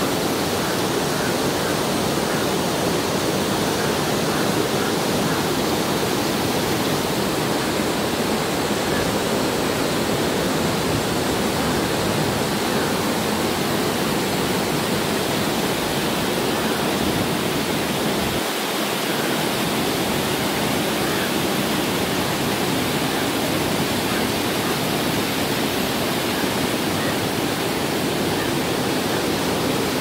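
Waterfall pouring over rock ledges into a rocky pool: a steady rush of falling water.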